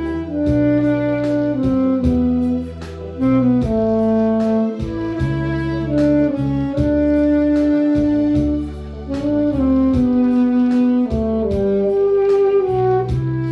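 Saxophone playing a slow, legato melody of long held notes over a backing track with bass notes and a steady drum beat.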